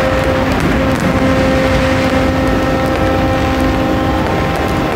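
An engine running steadily with a low rumble and a few held tones, plausibly a motorboat's, with faint sharp crackles of fireworks over it.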